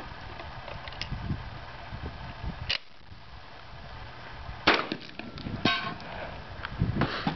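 Gunshots from a shouldered long gun, about four sharp reports a second or two apart, the loudest about two-thirds of the way in. One is followed by a short metallic ring of a steel target being hit. Wind rumbles on the microphone throughout.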